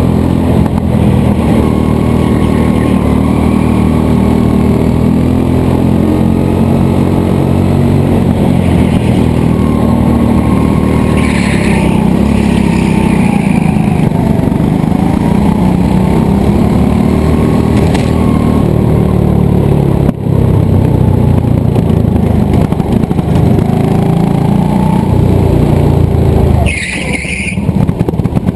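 Go-kart engine running hard at full throttle, its pitch rising and falling through the corners. Two brief high squeals, about twelve seconds in and again near the end, where the engine note drops off.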